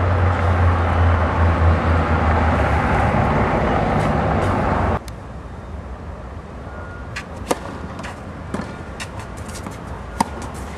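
Tennis racquet striking the ball: a sharp pop from a serve about halfway through, and another from a forehand near the end. Before that, a loud steady low rumble fills the first half and cuts off abruptly.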